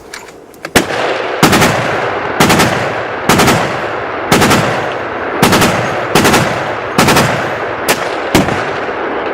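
Gunfire from several shooters in a free-for-all: about ten sharp shots, roughly one a second, each followed by a rolling echo.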